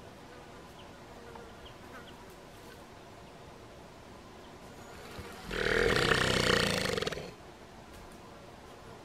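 Sika stag's gurgle, the rutting call a stag aims at a rival: one loud, harsh call about two seconds long, starting a little past the middle.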